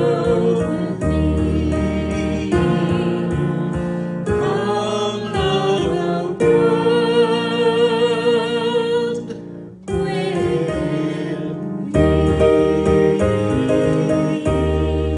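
A man and a woman singing a duet with keyboard accompaniment, holding a long note with vibrato midway.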